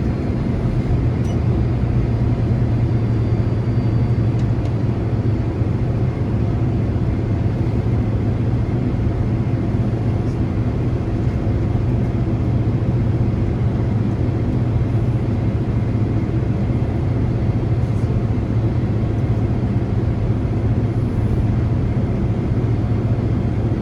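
Steady cabin noise inside a Boeing 767 taxiing after landing: a constant low hum of the engines at idle and the air conditioning, with no change in level.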